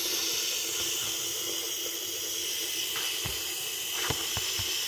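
Bathroom sink faucet running, a steady stream of water splashing into the basin, with a few light knocks near the end.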